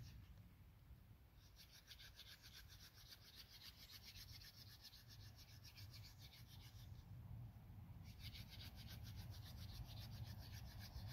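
Mullein-stalk hand drill twirled between the palms on a cedar hearth board: a faint, fast, rhythmic rubbing of wood on wood, with short breaks near the start and about seven seconds in. The drilling is slow and steady, grinding hot wood dust into the notch, which is beginning to smoke.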